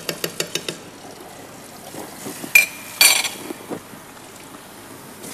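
A metal spoon tapping and scraping quickly against an aluminium frying pan for about a second, then a single ringing metal clink and a short clatter of kitchenware about three seconds in.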